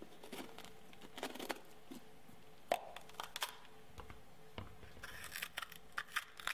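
Small kitchen knife cutting through a raw bell pepper: faint, crisp crunching and tearing as the pepper is halved and its stem and seed core are cut out, with a cluster of crunches near the end.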